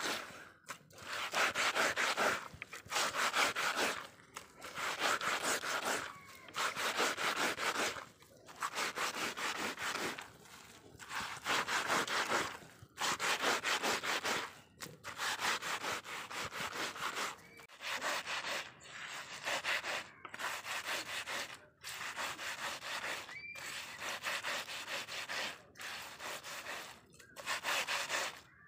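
Wet vine stems and leaves being rubbed back and forth by hand on a flat stone grinding slab. Each stroke gives a rasping scrape with a short pause between, roughly one stroke every two seconds, as the leaves are crushed into a slimy herbal hair-wash paste.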